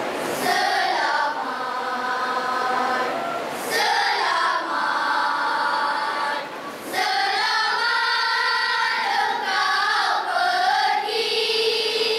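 Children's choir of boys and girls singing together. The song comes in three phrases, with short breaks for breath about three and a half seconds in and again about seven seconds in.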